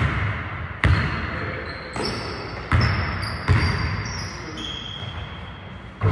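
Basketball dribbled on a hardwood gym floor: about five irregular bounces in the first three and a half seconds, each with an echo, with short high sneaker squeaks in the middle.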